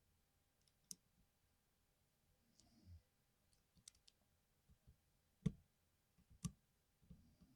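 A few isolated sharp clicks and taps from small plastic keyboard parts being handled during a 60% keyboard rebuild, with a soft scuffle between them. The two loudest clicks come a second apart, near the end.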